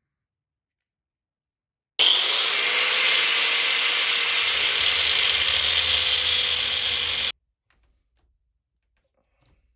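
A power tool running steadily for about five seconds, starting and stopping suddenly.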